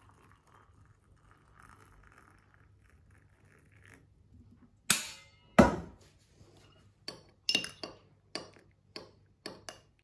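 Hot water poured faintly from a kettle into a mug, then two sharp knocks about five seconds in, followed by a teaspoon clinking repeatedly against the inside of the mug as the tea is stirred, about two clinks a second.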